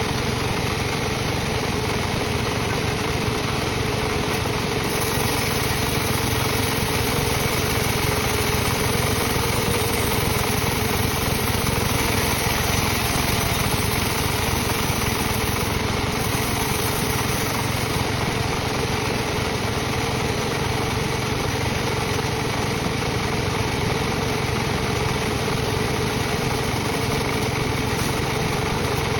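Sawmill machinery running steadily without a break while teak is sawn into rafter stock.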